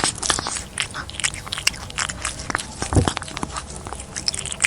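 Cartoon eating sound effect: quick, irregular crunchy chomping and chewing, for a fox gobbling watermelon fruit, loudest about three seconds in.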